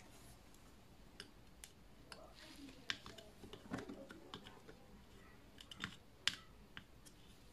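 Faint, scattered small clicks and taps of metal tweezers and a soldering iron tip against a circuit board as a surface-mount resistor is desoldered. The sharpest click comes about six seconds in.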